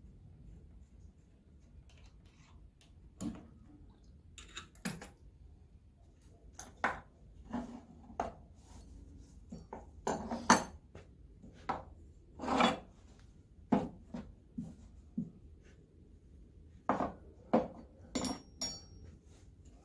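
Wrenches and small metal parts being handled and set down on a workbench: irregular clinks and knocks, one ringing briefly near the end.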